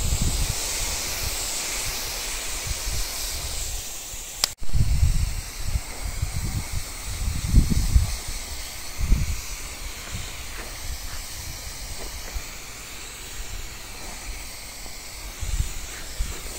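Garden sprayer wand's nozzle hissing as it mists potato plants. The hiss is strongest for the first few seconds, breaks off abruptly, then goes on fainter with irregular low rumbles.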